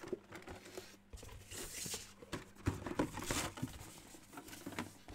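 Hands handling a mini football helmet in its clear plastic display case: plastic rustling and crinkling with a run of light clicks and knocks, loudest in two rustles about one and a half and three seconds in.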